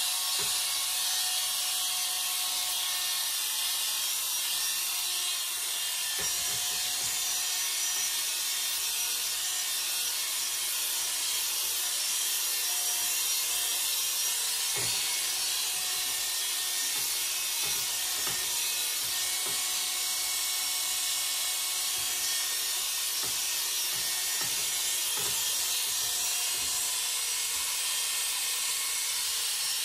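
Corded electric hair clipper running with a steady buzz as it is run over short stubble on a scalp, the blade hissing as it cuts about four weeks of regrowth.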